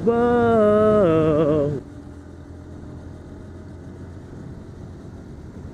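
Sport motorcycle engine running at high revs with a pitch that wavers, then cutting back sharply about two seconds in to a quieter steady drone of engine, tyres and wind while cruising.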